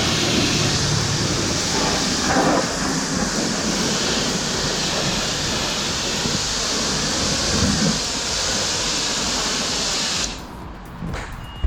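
Pressure washer spraying water onto a car's bodywork, a steady loud hiss of spray that stops about ten seconds in.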